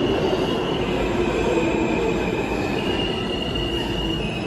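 R160 subway train pulling into a station: the cars rumble along the rails, with a steady high-pitched wheel squeal that shifts higher about three seconds in, as the train slows to stop.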